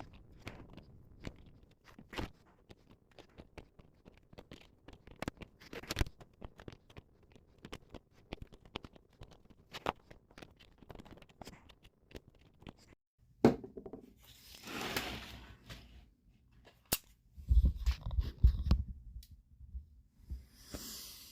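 Hands handling small objects on a workbench: scattered light clicks and taps, a brief rustle, then a cluster of heavier knocks a few seconds before the end.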